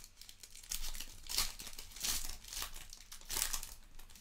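Foil wrapper of a Clearly Donruss basketball hobby pack being torn open and crinkled by hand: a run of short rustles, about five of them.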